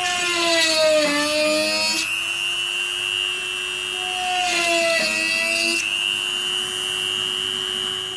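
HILDA JD3321C variable-speed rotary tool running with a drill bit, drilling. It gives a steady high whine, and the motor's pitch sags twice under load, in the first couple of seconds and again around the middle, as the bit bites.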